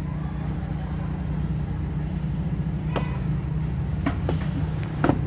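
Maruti Suzuki Alto idling steadily, its exhaust blowing into a balloon held over the tailpipe, with three short clicks in the second half.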